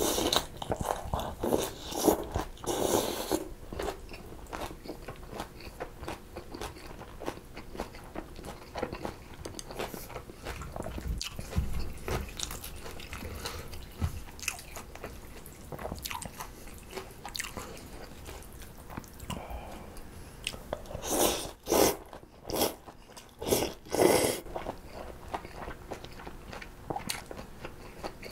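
Close-miked eating of mulhoe, cold raw-fish soup with noodles and shredded vegetables: crunchy chewing of the vegetables and fish, with noisy slurps of noodles and broth at the start and again a few seconds before the end.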